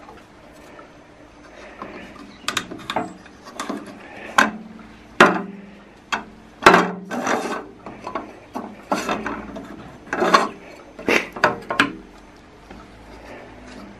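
Handling noise from fitting the blade guard on a Güde GADH 200 planer-thicknesser's jointer table: a string of sharp clicks, knocks and rattles of plastic and metal parts as the guard and its clamp are pushed, turned and locked by hand, the loudest knocks about five and seven seconds in, some with a short ring.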